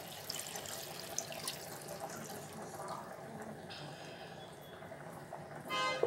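Milk poured from a mug into a pan of fried chicken masala, splashing into the thick gravy.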